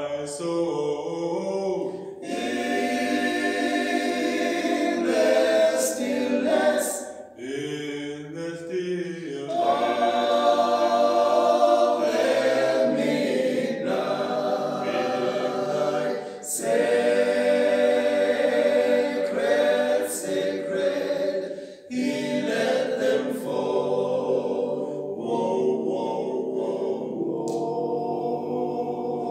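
Six-man male vocal group singing a cappella in harmony, in sung phrases with brief breaks between them.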